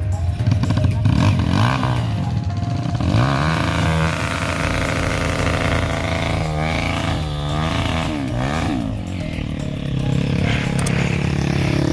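Off-road trail motorcycle engine revving, its pitch rising and falling over and over.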